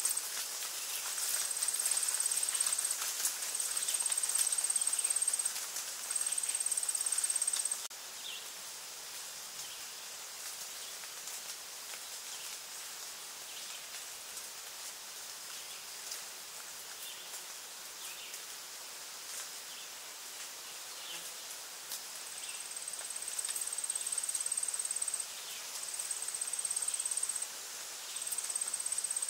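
Insects buzzing: a high, steady note in phrases of about two seconds with short breaks, stopping about eight seconds in and starting again past the twenty-second mark. In the quieter stretch between, faint short chirps come every second or two.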